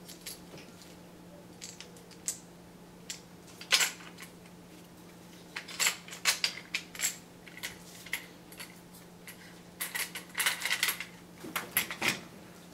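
Sharp clicks and light clattering of hard plastic and metal camera accessories being handled and set down, in scattered bursts over a faint steady hum.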